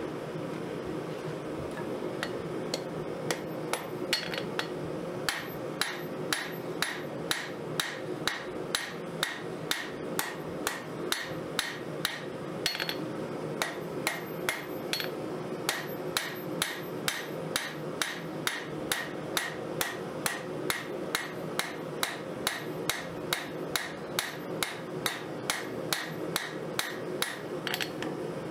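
Hand hammer striking a red-hot 5160 spring-steel knife blank on an anvil, steady forging blows about two a second, with a constant hum underneath.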